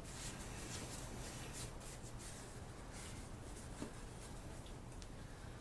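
Faint scratching and rustling handling noises with a few small clicks, as hands work on the old pressure washer to check its fuel, over a low steady hum.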